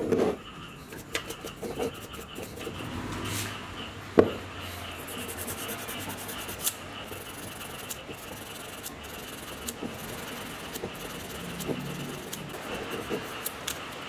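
Hands handling and rubbing the armature of an old Makita circular saw motor against a bench top: a knock as it is set down at the start, a sharp click about four seconds in, then scattered small clicks and rubbing.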